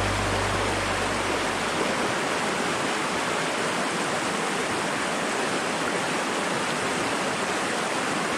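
Shallow rocky forest stream running over stones and through small riffles: a steady rushing of water. A low hum fades out in the first second or two.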